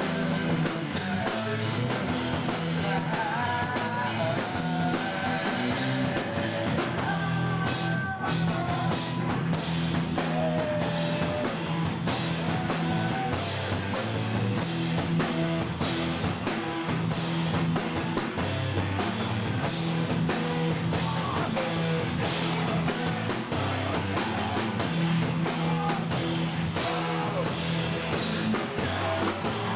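A rock band playing live: distorted electric guitars and bass over a drum kit, with steady, driving drum hits throughout.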